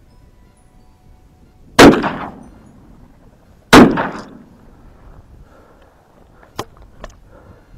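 Two shotgun shots about two seconds apart, fired at a flock of flushed ducks, each with a short echoing tail. Two fainter sharp clicks follow near the end.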